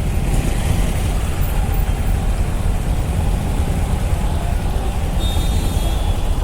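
Kawasaki Ninja motorcycle on the move in traffic: steady wind rush on the helmet microphone mixed with the engine running and the surrounding traffic.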